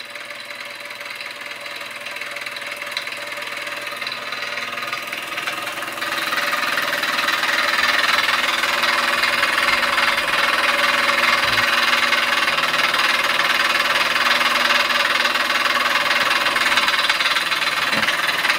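Mamod ME1 single oscillating-cylinder marine steam engine running on steam with a rapid, steady knocking, under a steady hiss that grows louder about six seconds in. The hiss is steam escaping from a leaking safety valve.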